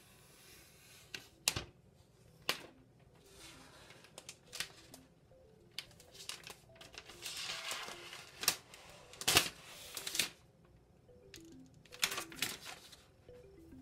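Handling noises from unpacking a laptop: a thin protective sheet rustling, and sharp clicks and knocks as the laptop and its box are handled, the loudest about midway and near the end. Faint music plays underneath.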